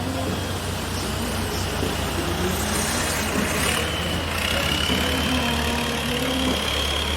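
An engine running steadily at idle with a deep, even hum. A thin high whine joins about halfway through and rises slightly in pitch.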